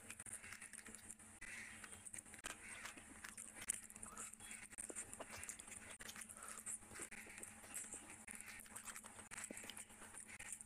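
Faint close-up eating sounds: wet, irregular clicks and smacks from chewing and from fingers working puffed luchi and mutton pieces through thick curry.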